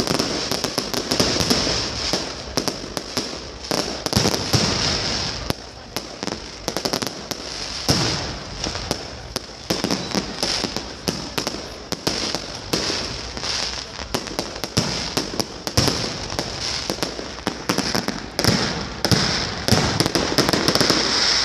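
Many aerial fireworks going off at once: a dense, continuous run of bangs and crackles, with a steady high hiss throughout.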